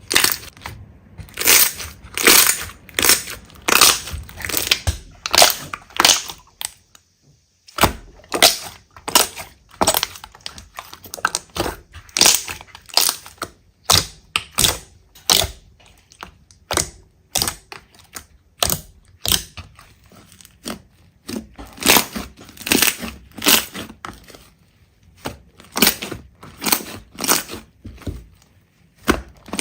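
Slime being squeezed and pressed by hand, a crackling squish with each press, about one to two a second, with a short pause about seven seconds in.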